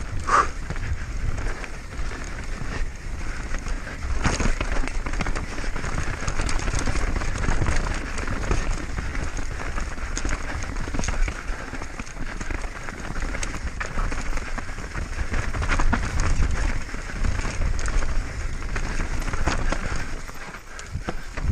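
Mountain bike riding fast downhill over a rough trail: a steady rush of tyres on dirt and loose stones, with frequent clicks and rattles from the bike.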